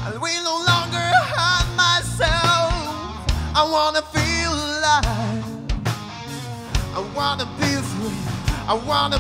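Rock band playing live: a singer's lead vocal over electric guitar, bass guitar and drums.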